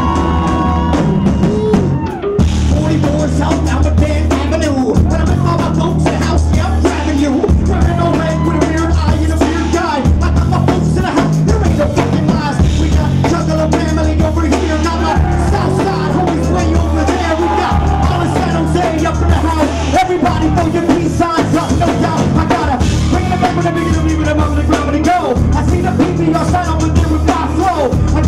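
Live horrorcore rap-rock song: a rapper shouting his lyrics into a microphone over a heavy, bass-laden beat and electric guitar, played loud through the club PA. The music drops out briefly about two seconds in.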